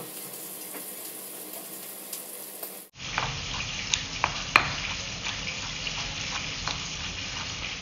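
A steady hiss, then from about three seconds in a stone pestle grinding tomatoes, chilies and toasted shrimp paste in a stone mortar (cobek): wet crushing and scraping, with sharp clicks of stone on stone.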